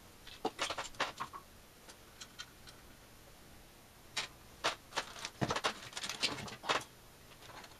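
Small screws and parts being handled on a workbench: scattered light clicks and taps in two clusters, one near the start and a longer run in the second half.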